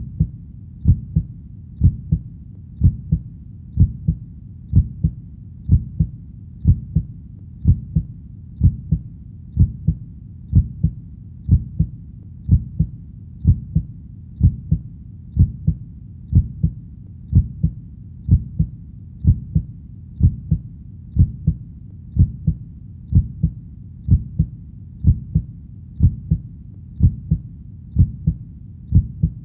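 Heartbeat sound: a steady lub-dub double thud repeating about once a second, low in pitch.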